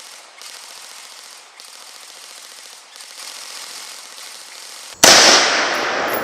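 A faint hiss, then about five seconds in a sudden, very loud burst of gunfire that fades over about a second.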